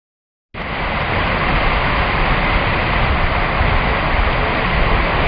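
A loud, steady rushing noise with no rhythm or pitch, starting about half a second in.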